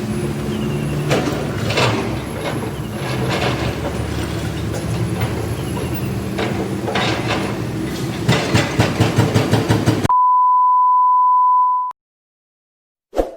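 Excavator diesel engine running under load with scattered knocks, then a hydraulic breaker hammering concrete in rapid, even blows, about six a second. The sound cuts off suddenly into a steady high beep lasting about two seconds, followed by silence and a short click.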